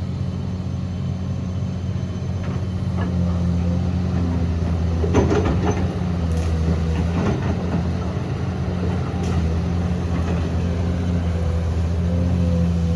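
Diesel engine of a heavy earthmoving machine running steadily, with a cluster of metallic knocks and scrapes about five seconds in and a few more later.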